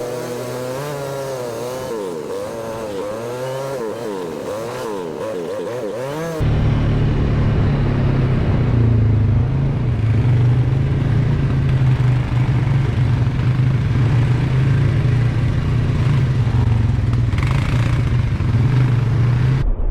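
ATV engines running on a trail, the pitch rising and falling with the throttle for about six seconds, then a sudden change to a louder, steadier low engine drone.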